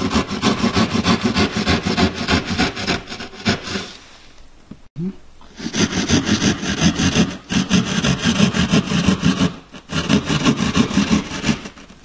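Hand sheetrock (jab) saw cutting through drywall in quick back-and-forth strokes, sawing out the opening for an old-work electrical box. The sawing stops for about a second and a half a third of the way in, then picks up again with one brief break near the end.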